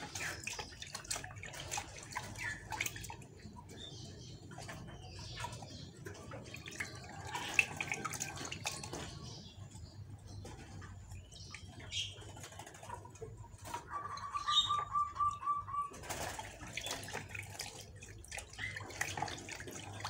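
Water splashing and sloshing in a plastic basin as a bird is dipped and rubbed by hand to soak its feathers through, with small irregular splashes and drips. A bird gives a short, quick run of even notes about two-thirds of the way through.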